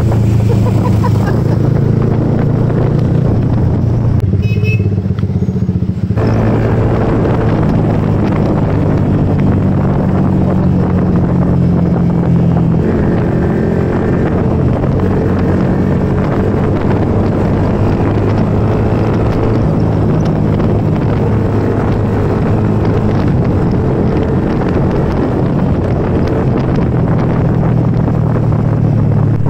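Motorcycle engines running steadily at cruising speed, heard while riding, with wind and road noise over a low, even engine note. About four seconds in, the sound goes muffled for a couple of seconds.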